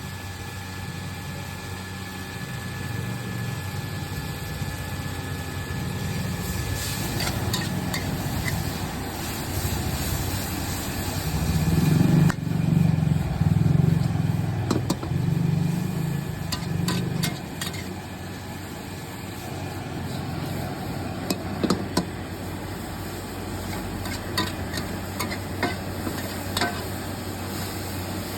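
Street traffic: a motor vehicle's engine rumbling, louder for a few seconds in the middle, with scattered clicks and knocks.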